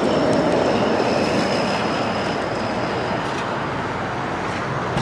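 A vehicle passing close by: a steady rumbling road noise that swells just before and slowly eases off.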